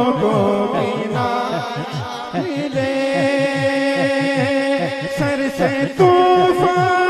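A man singing a hamd, an Urdu devotional song in praise of God, into a microphone and holding long notes, over a steady beat of low, falling thumps about three to four a second.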